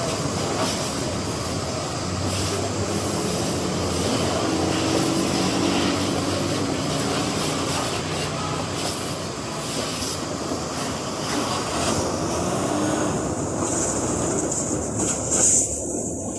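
A steady mechanical rumble and noise, with a high hiss coming in about three seconds before the end.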